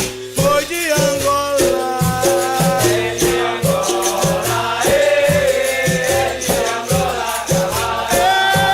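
Capoeira music: a steady beat with a shaker rattle, typical of a berimbau and its caxixi, under voices singing.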